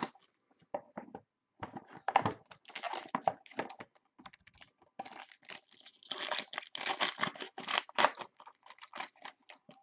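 Plastic wrapping and a trading card pack being torn open, crinkling and crackling in irregular bursts that grow busiest in the second half.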